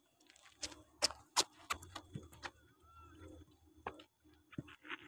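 Footsteps on the artificial turf of an indoor cricket net: a run of sharp, irregular taps, with a faint hum underneath.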